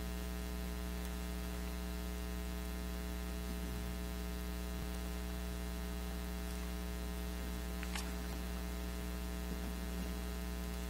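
Steady electrical mains hum: a low, even buzz with many higher steady tones stacked above it. There is one faint click about eight seconds in.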